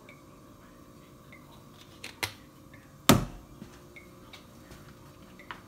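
Kitchen handling sounds around a stainless-steel skillet on the stove: faint irregular ticking, two light clicks a little after two seconds, and one sharp knock about three seconds in that rings briefly.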